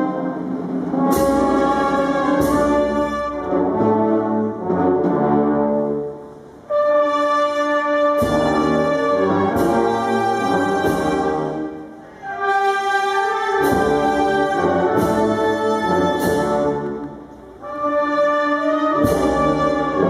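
Brass band playing a slow, solemn march in held chords, phrase by phrase, with a percussion stroke at the start of several phrases and short breaks between them.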